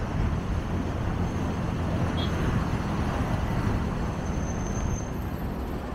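Steady road traffic from a busy seafront road: a constant low rumble of passing cars.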